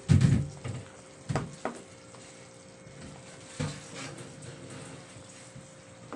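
A spatula knocking and scraping against a wok while it turns chicken pieces simmering in sauce. The loudest knock comes right at the start and a few lighter ones follow, over a faint simmer and a faint steady hum.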